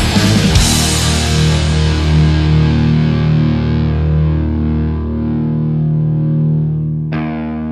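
Rock-metal song: the full band with drums stops about half a second in, leaving one distorted electric guitar chord ringing and slowly fading. Near the end a new guitar chord comes in.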